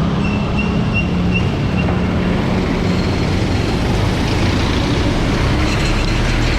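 Steady street traffic noise with a vehicle engine running at a constant low hum.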